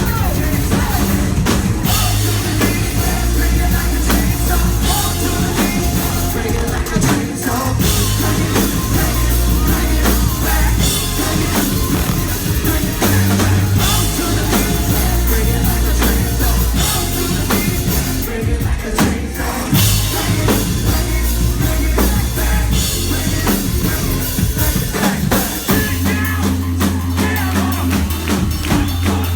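Live rock band playing loudly, with drum kit and heavy bass notes that change every couple of seconds, and some singing.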